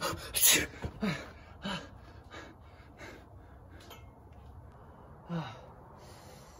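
A man sneezes hard into his elbow, then gasps and breathes heavily in a string of short, falling-pitched bursts that fade off, as in an allergic sneezing fit.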